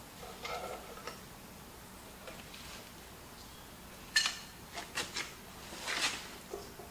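Light metal clinks and knocks as the rebuilt lift cylinder of a Bobcat T300 skid loader is worked into line at its boom mount. A few faint knocks come early, and several sharper clanks come between about four and six seconds in.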